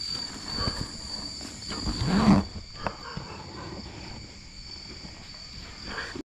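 Night insects, crickets or similar, trilling steadily in high continuous tones, over light rustling and clicks. About two seconds in there is a short, loud, low sound that rises and falls.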